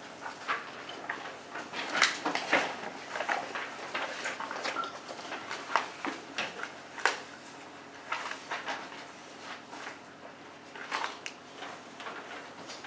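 Scattered small knocks, clicks and rustling of papers being handled at a meeting table, in a small room.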